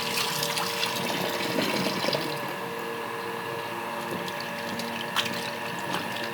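Tap water running and splashing while raw chicken pieces are washed, a steady rush with small clinks.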